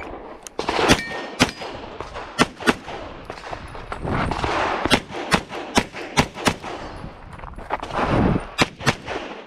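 Pistol shots fired in quick pairs and strings during an IPSC stage run. There are about fourteen sharp cracks: a group in the first few seconds, a rapid string in the middle, and a few more near the end.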